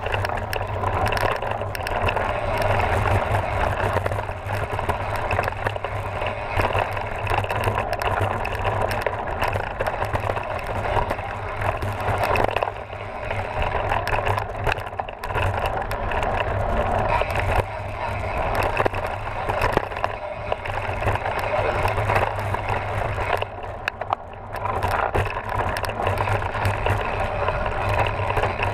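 Mountain bike rolling fast over a dry dirt and gravel trail, picked up by a bike-mounted camera: a steady rumble of tyres on dirt with the bike rattling over bumps and wind rushing over the microphone.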